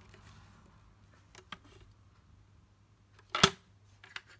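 Plastic lid of a Brita filter jug being handled and pressed into place: a couple of faint ticks, then one sharp snap about three and a half seconds in.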